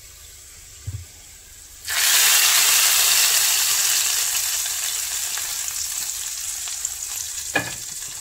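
Hot oil with fried onions poured into fish curry in a clay pot: it hisses loudly as it hits the curry, then sizzles and slowly dies down. A dull thump comes about a second in, and a sharp knock near the end.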